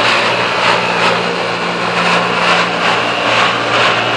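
Pentair UltraTemp pool heat pump running loud with a terrible sound from low in the unit: a steady low hum under a harsh, dense noise that pulses faintly and unevenly. The cause is unknown to the owner.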